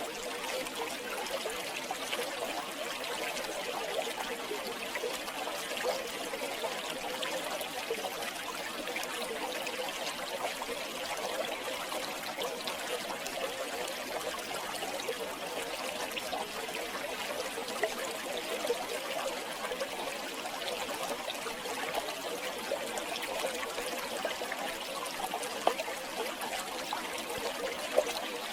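River water flowing and trickling steadily over stones, a constant babbling with small splashes.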